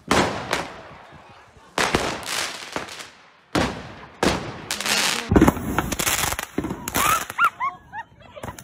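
Fireworks exploding at close range: a rapid string of sharp bangs, each trailing off in a crackling hiss, coming closer together in the second half. Near the end short high-pitched yelps sound among the bangs.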